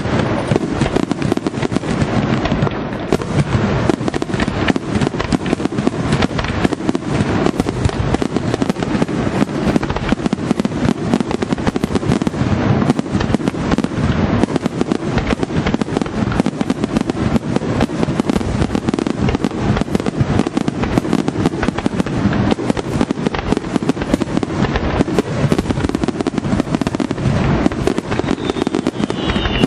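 Aerial firework shells bursting in a dense, unbroken barrage of rapid bangs. A short falling whistle sounds near the end.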